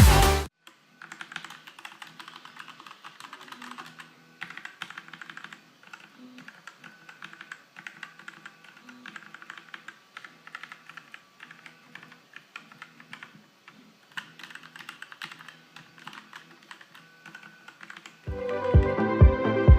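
Typing on a Motospeed CK104 mechanical keyboard: fast, irregular key clicks in bursts with short pauses between. Loud electronic music cuts off just after the start and comes back near the end.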